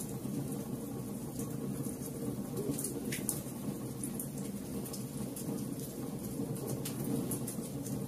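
Wood fire burning in a fireplace: a steady low rumble of flames with frequent small crackles and pops, a few of them sharper, about three seconds in and about a second before the end.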